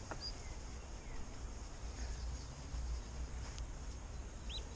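Faint high peeping of mallard ducklings, a short chirp near the end, over quiet outdoor background rumble.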